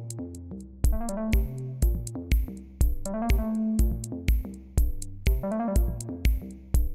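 Electronic background music: a steady drum-machine beat of about two beats a second under synthesizer chords and a melody.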